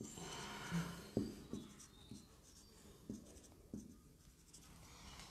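Faint handwriting: a soft scratch of a pen stroke at the start, then a handful of light taps and clicks as characters are written out.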